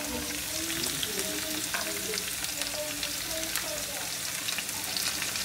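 Sliced pointed gourd (parwal) frying in oil in an iron kadai, a steady sizzle.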